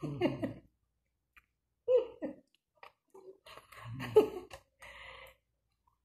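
A woman laughing in short bursts: one at the start, another about two seconds in, and a longer one about four seconds in, followed by a breathy exhale.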